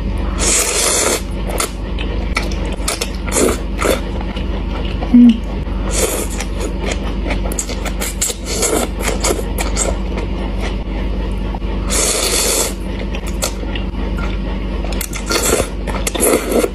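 Noodles slurped up in four long pulls spaced about five seconds apart, with chewing and small mouth clicks between them, over a steady low hum. A brief, loud low tone sounds about five seconds in.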